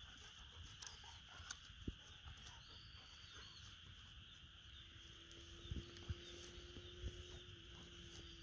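Faint sounds of golden retrievers moving about on the ground: scattered soft patters and a few thumps from their paws over a steady high hiss, with a faint steady hum coming in about five seconds in.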